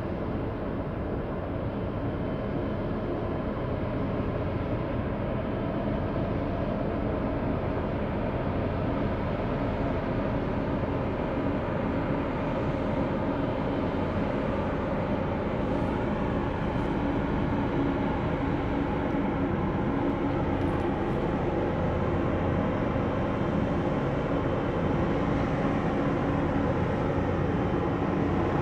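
Steady low drone of a passing Panamax bulk carrier's engine, growing slightly louder as the ship's stern comes abreast.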